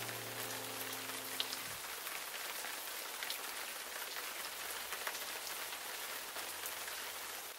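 Steady, soft rain-like hiss with scattered faint ticks, like drops. A held background-music chord dies away in the first two seconds.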